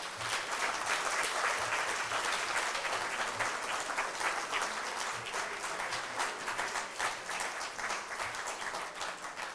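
An audience applauding, many hands clapping at once, slowly thinning out near the end.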